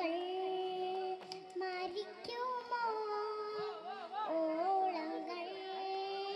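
A young girl singing solo into a microphone, holding long notes with a quick wavering run about halfway through.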